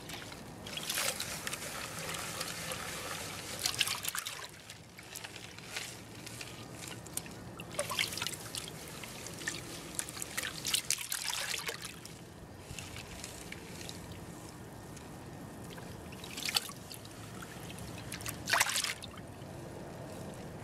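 A plastic gold pan being worked in a tub of muddy water: water sloshing and trickling off the pan's lip as gravel and sediment are washed out, with louder splashes and pours now and then as the pan is dipped and tipped.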